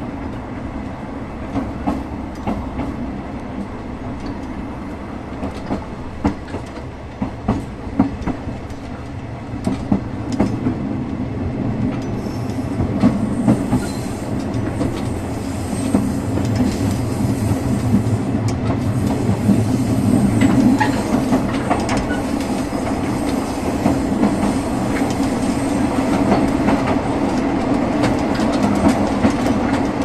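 Diesel railcar running, heard at the gangway between two cars: a steady rumble with wheels clicking over rail joints, getting louder about ten seconds in and again about sixteen seconds in.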